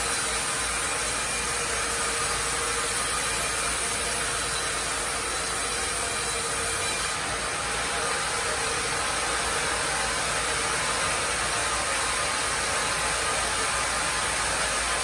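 Carriage sawmill running: steady machine noise from the saw and its log carriage as a tree-of-heaven log is carried past the blade.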